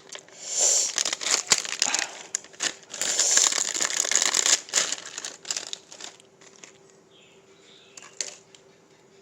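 Crinkling and rustling of something being handled, in dense sharp bursts that die away about six seconds in, leaving a faint steady hum.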